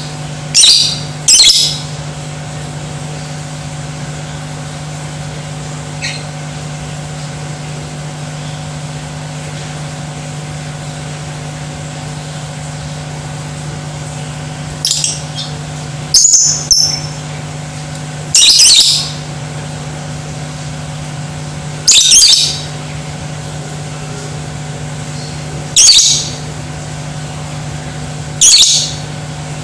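Lovebird giving short, high-pitched calls, about eight in all: two in the first two seconds, then after a long pause a run of single calls every few seconds, each lasting under a second. A steady low hum runs underneath.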